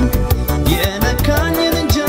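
Live band playing Ethiopian pop music: a drum kit keeps a quick, steady beat on the cymbals over bass and keyboard.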